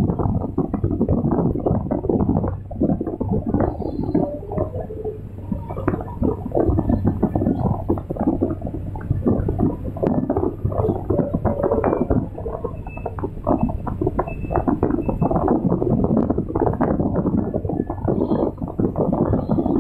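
Excavator heard from the operator's cab: the diesel engine runs with a steady low hum under dense, irregular rattling and clattering from the hydraulics and linkage as the bucket works and trims a gravel slope.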